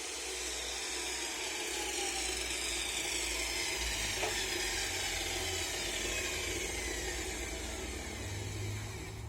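A power tool running steadily, its whine slowly falling in pitch over several seconds.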